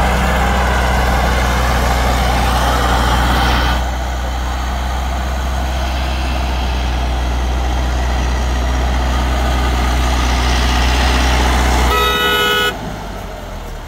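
Massey Ferguson 375 tractor's diesel engine running hard under load, pulling a disc harrow through ploughed soil. Near the end a horn sounds once, briefly, and the engine drone then falls away.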